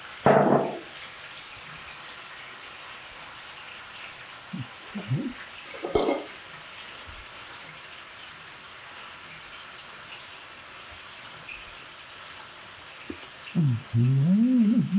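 Flour being sifted through a metal strainer into a stainless steel mixing bowl, soft and steady, with a sharp knock about six seconds in. Later a wooden spoon stirs the flour into the batter.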